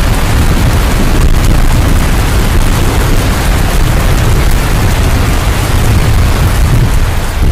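Heavy rain, heard as a loud, steady rushing hiss with a deep rumble from wind buffeting the microphone.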